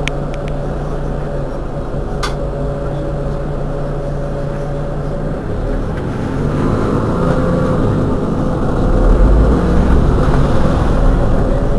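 Mercedes-Benz Citaro G articulated bus standing with its engine idling, a steady low hum that grows louder about two-thirds of the way through. A single sharp click about two seconds in.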